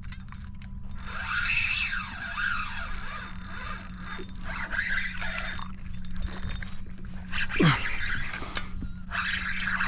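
Fishing reel working against a hooked fish, the drag and line giving rough, scraping spells, over the steady hum of the kayak's electric trolling motor, which is still running.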